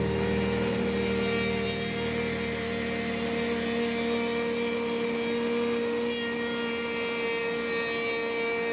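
CNC router spindle running while its cutter skims the top face of a railroad sleeper: a steady whine over the rasping noise of wood being milled.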